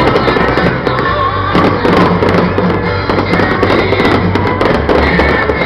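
Loud music with a bass line, with fireworks going off over it: many sharp bangs and crackles.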